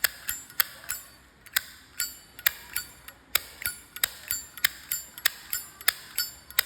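Brass Zippo lighter with its hinged lid flicked open and snapped shut over and over, a run of sharp metallic clicks about three a second.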